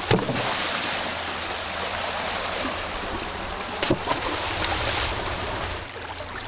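Large stones thrown into a shallow stream, splashing in twice: once right at the start and again about four seconds in, over the steady rush of water running over rocks.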